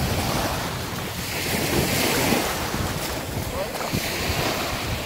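Lake waves washing in, with wind buffeting the microphone; the wash swells about two seconds in.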